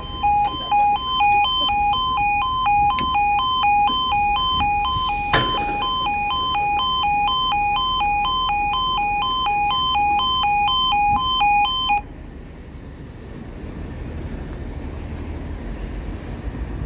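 British level crossing yodel alarm: a two-tone warble switching rapidly between a lower and a higher note, warning that the barriers are down and a train is due. It cuts off suddenly about twelve seconds in, leaving a low steady rumble.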